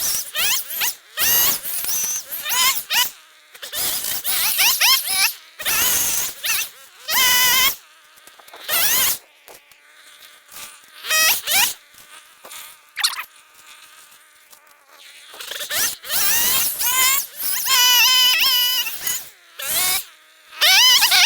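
Hand saw cutting through a tree limb in irregular strokes, the blade squealing with a wavering high pitch on many strokes, with short pauses between runs of strokes.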